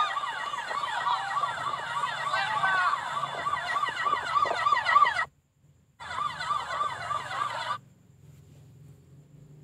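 Emergency vehicle sirens in a fast, repeating yelp, about three cycles a second, with a second siren gliding above it. The sound drops out for about half a second around five seconds in, then stops near eight seconds, leaving a faint low hum.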